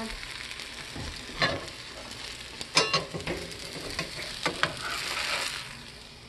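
Oat pancake sizzling in butter in a nonstick frying pan, with a spatula scraping under it and knocking against the pan a few times as it is lifted out. The sizzling dies down near the end.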